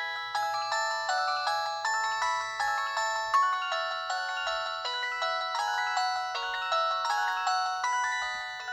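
An LG VX4500 phone's loudspeaker playing one of its built-in ringtones: a bright electronic melody of short, quickly changing notes, several sounding at once, in an even rhythm.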